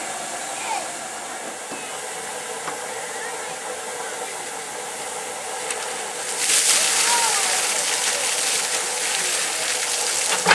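Steam hissing steadily from a GWR steam tank locomotive, becoming much louder and harsher about six seconds in.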